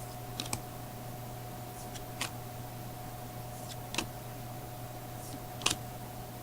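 Baseball trading cards being flipped through by hand: four short, crisp card snaps, one about every second and a half to two seconds, over a steady low electrical hum.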